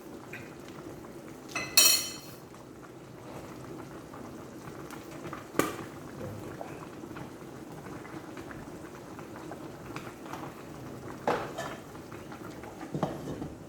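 A pot of chicken adobo simmering with a steady bubbling hiss. About two seconds in a metal utensil clanks against the pot and rings briefly, with a sharp click later and a few lighter knocks near the end.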